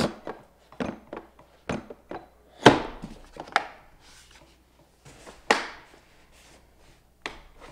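Apollo tool kit's hinged plastic case panel being folded shut and pressed and locked into place: about half a dozen separate sharp plastic knocks and clicks, the loudest about two and a half seconds in.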